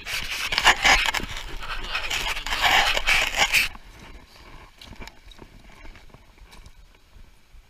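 A man breathing hard, loud rapid panting close to the microphone, which stops abruptly about four seconds in. After that, only faint scattered crunches of footsteps on loose gravel and stones.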